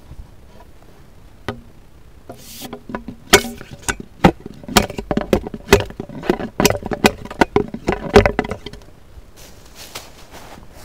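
Bamboo pole knocking and rubbing against a short bamboo sleeve set in the ground as it is worked into place: a quick, irregular run of knocks and clicks, some with a short ring, starting about three seconds in and lasting about five seconds.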